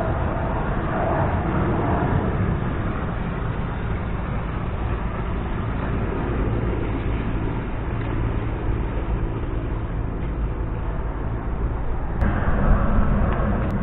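A sailing yacht's inboard engine running steadily as the boat motors past close by with its sails down, mixed with a steady outdoor rush. The sound changes abruptly about twelve seconds in.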